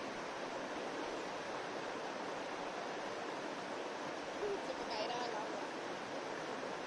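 Shallow stream running steadily over rocks, with a brief faint pitched sound about five seconds in.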